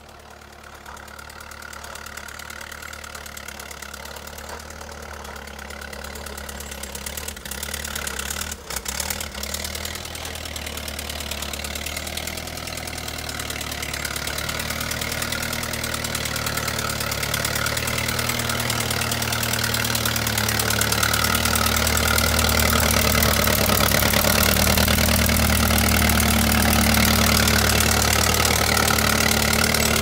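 Allis-Chalmers WC tractor's four-cylinder engine running as it plows snow with a front blade, its steady note growing louder as the tractor comes closer.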